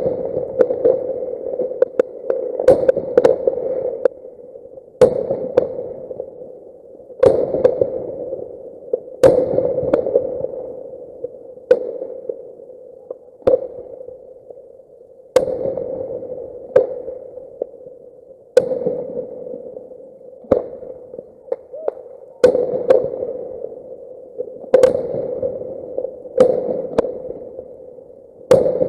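Fireworks going off every second or two, each sharp bang followed by a fading rumble, over a steady hum. The recording is played at double speed.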